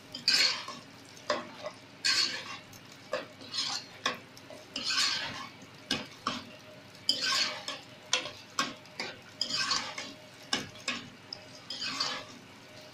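Metal spoon stirring chopped onion in hot oil in a non-stick pot, scraping and knocking against the pot in repeated strokes about once a second, over a light sizzle of the onion frying.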